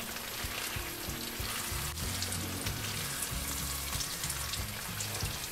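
Beef chunks with cubed onion and yellow capsicum sizzling and frying in oil in a non-stick frying pan, stirred with a spatula. A steady, even sizzle.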